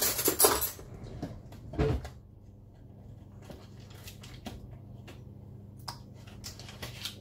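Kitchen handling noises as butter is added to a pot of milk: a crackly rustle of the butter's foil wrapper at the start and a thump about two seconds in, then a few faint light taps over a steady low hum.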